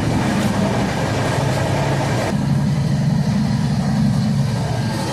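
Steady, loud low rumble of a train, with an abrupt change in its sound about two seconds in.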